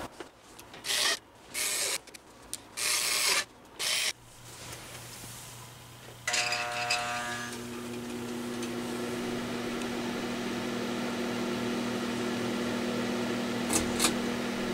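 Several short scraping rubs as the sheet-metal case of a White Westinghouse WWHR3010 fan-forced radiant heater is worked back into place. About six seconds in the heater switches on: a brief hum at start-up, then its fan motor runs with a steady hum and a rush of air, with two quick ticks near the end.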